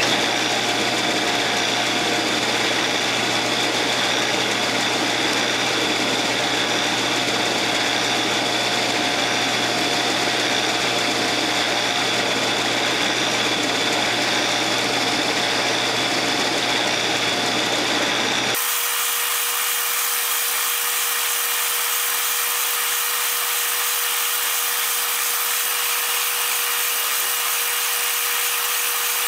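A Shopsmith set up as a horizontal boring machine runs steadily as a 3/8-inch brad point bit slowly bores into the end of a mahogany bed post. About two-thirds of the way through, the sound changes suddenly: the low hum drops away and a different steady tone takes over.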